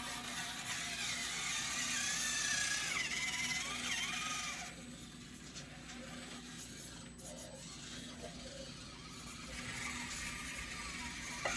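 Small electric motor and gears of an Axial SCX24 mini RC crawler whining, its pitch rising and falling as the throttle changes. It is louder for the first few seconds, then drops off to a faint hum.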